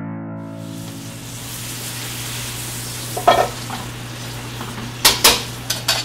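Steady sizzling hiss with a few sharp clinks and knocks, over a low steady hum.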